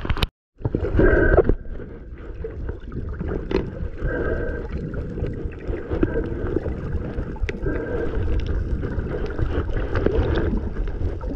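Wind buffeting the microphone with water rushing and splashing around the hulls of a Hobie Cat sailing catamaran under way. The sound drops out briefly just after the start, then runs on steadily.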